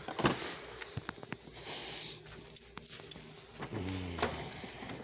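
Plastic blister-packed action figures being handled and flipped through in a cardboard box: scattered clicks, taps and crinkles of hard plastic packaging.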